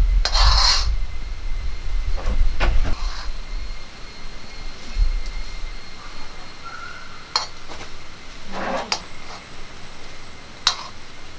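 Flat metal spatula scraping and knocking against a heavy-bottomed iron pan while stirring a thick, sticky mix of crushed peanuts and jaggery syrup, in several separate scrapes, the loudest near the start and about two-thirds of the way in. A low rumble runs under the first few seconds.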